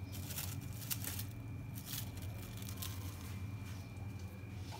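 A few faint crinkles and rustles of a thin plastic bag wrapped over a jar lid as kabab mixture is pressed and handled in it, over a steady low hum.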